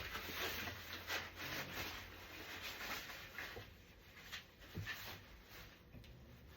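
Rubbing and rustling of playard parts being handled during assembly, with scattered light clicks; the handling noise thins out after about four seconds.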